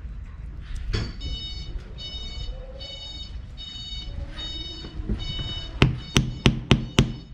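Repeating electronic beeping, each beep about half a second long. Near the end come five sharp hammer blows, the loudest sounds, driving a round plug into a through-hull hole in the wooden hull planking.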